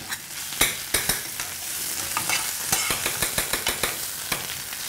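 Baby spinach sizzling in hot sunflower oil in a frying pan while it is stirred constantly, with many sharp clicks of metal utensils against the pans.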